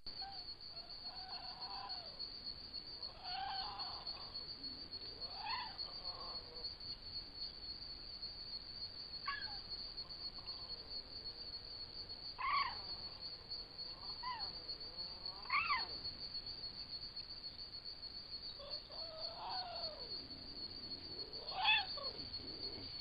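Florida panther caterwauling: about nine drawn-out yowls a few seconds apart, each rising and then falling in pitch, the last one near the end the loudest. It is the mating call a female panther makes to let males know she is ready to mate.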